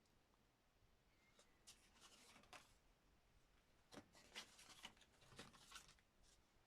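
Wax crayon scribbling on paper: two faint bouts of scratchy strokes, the second one longer.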